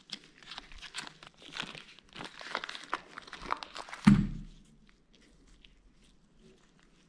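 Plastic wrapping crinkling and tearing as it is pulled off a stack of engine bearing shells, with one loud dull thump about four seconds in. After the thump it is quieter, with a few light clicks of the shells being handled.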